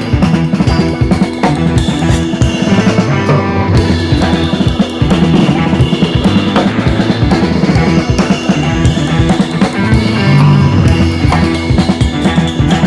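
Background music: a rock-style track with a steady drum-kit beat.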